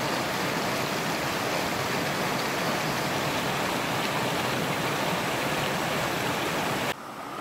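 Small waterfall cascading over rocks into a pool: a steady rush of water that cuts off suddenly near the end.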